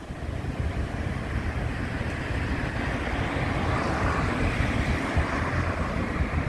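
Street traffic: a passing vehicle's noise swells around the middle and eases off, over a fluttering rumble of wind on the microphone.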